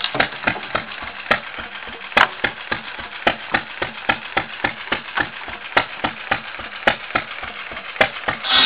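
Antique 4 hp Stover gas engine, throttle-governed rather than true hit-and-miss, firing in an even string of sharp exhaust pops about four or five times a second while it drives a cordwood buzzsaw. Near the end a much louder, sustained rasp sets in as the blade bites into a slab of wood.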